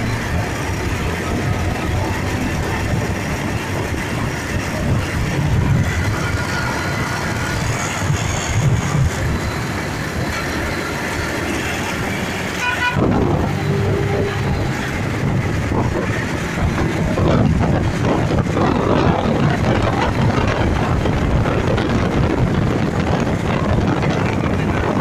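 Motorcycle running on the road with its HHO kit feeding the carburettor, engine and road noise over wind rushing on the microphone, which grows heavier about halfway through.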